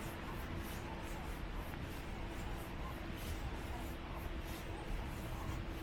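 Footsteps of someone walking on a trail, about two steps a second, over a low steady rumble with a faint steady hum.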